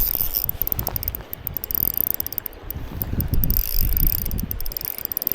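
Fishing reel being worked during a fight with a hooked steelhead, its gears or drag giving runs of rapid clicking, over a low rumble of wind on the microphone.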